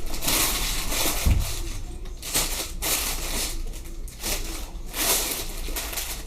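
Plastic Lego parts bags rustling and crinkling as they are handled and sorted, in several bursts, with a soft thump about a second in.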